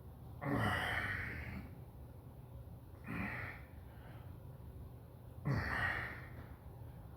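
A man sighing heavily through his voice: two long sighs whose pitch falls, about half a second and five and a half seconds in, with a shorter breath out between them.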